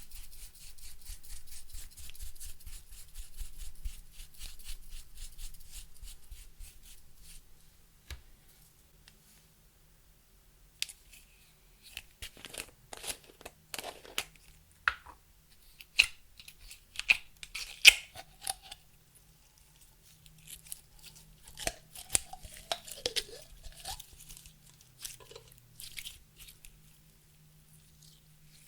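Close-up handling of makeup and clear slime: rapid fine crackling for several seconds, then a short pause, then a run of scattered sharp clicks and pops.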